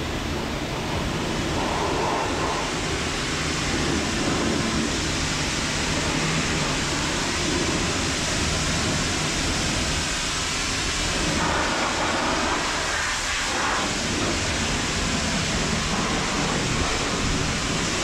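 Self-serve car-wash pressure-washer wand spraying a steady high-pressure jet of water onto a motorcycle, a continuous even hiss.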